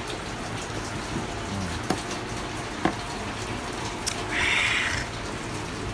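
Steady rain falling, with a few light knocks and a brief, louder hiss a little after the middle.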